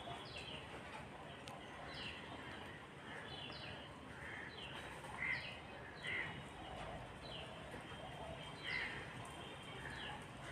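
Faint birds chirping: short falling chirps, about one or two a second, over a steady low hiss.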